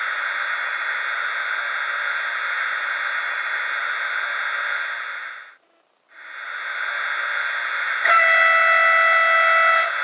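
Model locomotive sound decoder playing an ÖBB Taurus electric locomotive's standstill running noise, a steady hiss that fades out briefly about halfway through and fades back in. About two seconds before the end the locomotive horn sounds one steady note for about two seconds, starting and stopping abruptly.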